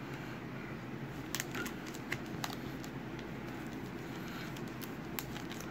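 Foil wrapper of a trading-card pack crackling a few times as fingers work the sealed end open, over a steady low hum.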